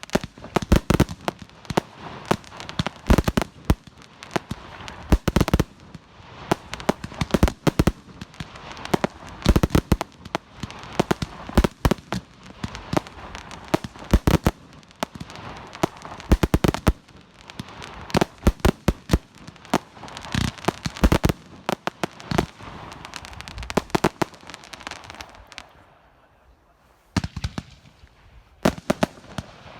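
Professional fireworks display: shells bursting in quick, irregular succession, with a steady hiss of noise between the bangs. The bangs stop briefly about 26 seconds in, then resume.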